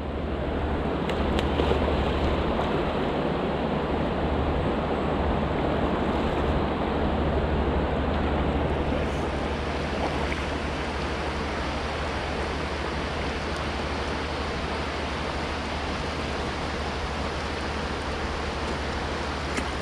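Steady rushing of river water, with a low wind rumble on the microphone.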